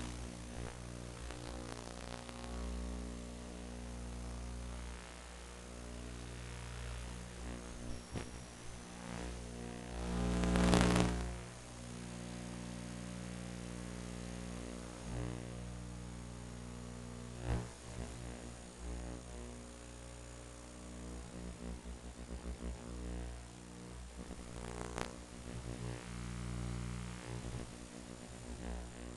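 Steady electrical hum with a stack of evenly spaced overtones, with a louder rushing swell about a third of the way in and a couple of sharp clicks later on.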